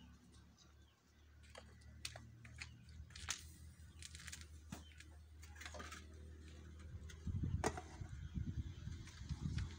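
Scattered light clinks and knocks of cooking pots, bowls and a lid being handled, followed from about seven seconds in by a low rumbling noise with one louder knock.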